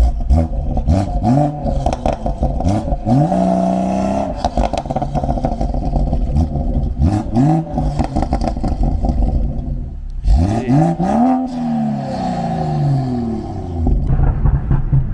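BMW M140i's tuned turbocharged straight-six, heard from inside the car, pulling hard through the gears: the revs climb in a series of quick rising sweeps, each cut short by an upshift of the ZF automatic, and fall away near the end as the car eases off.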